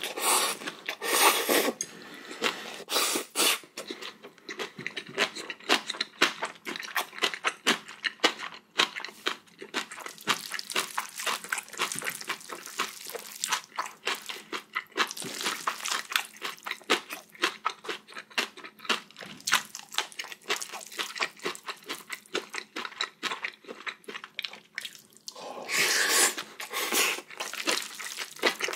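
Close-miked eating of spicy bibimbap: a steady run of wet clicks and squishes, with louder stretches about a second in, around three seconds in, and near the end.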